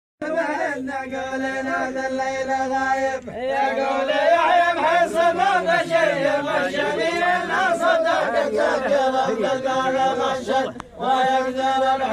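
A group of men chanting a dammah verse together in the Asiri folk style. They hold long drawn-out notes at first, then the many voices waver up and down in pitch and grow louder, dip briefly near the end and settle back onto a held note.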